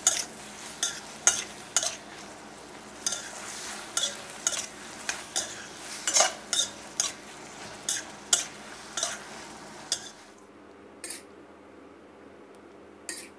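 Spatula scraping and knocking against a wok while stir-frying shimeji mushrooms and shrimp, over a low sizzle; the clatter comes about once or twice a second. It stops about ten seconds in, leaving a couple of light knocks as the food is served onto a plate.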